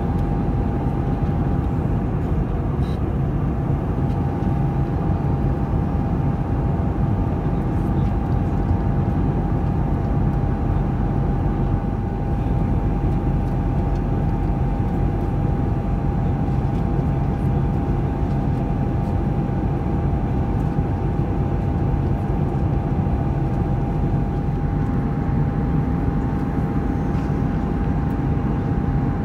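Steady cabin noise of an Airbus A320 in cruise, heard from a window seat over the wing: the jet engines' low roar and rushing airflow, with a steady whining tone above it.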